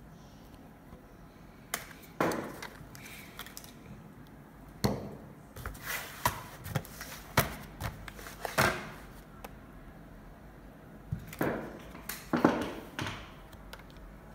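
Handling noise of a laptop's plastic bottom case: scattered clicks, knocks and short scrapes, in bursts about two seconds in, from about five to nine seconds, and again around twelve seconds.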